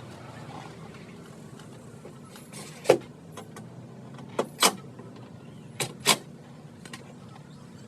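Sharp clicks and knocks over a low steady hum: one loud knock about three seconds in, then two quick pairs.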